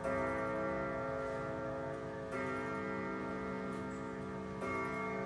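Howard Miller 610-159 grandfather clock with an Urgos movement, striking three slow, evenly spaced strokes about two and a quarter seconds apart. Each stroke rings on under the next, and the clock's ticking runs beneath.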